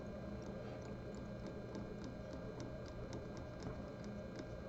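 Fly-tying thread being wrapped around elk hair on a hook: faint quick ticking, about three a second, over a low steady hum.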